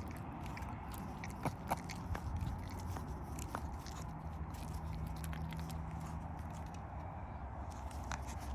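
Pomeranian chewing on a treat, with irregular small crunches and clicks, over a steady low hum.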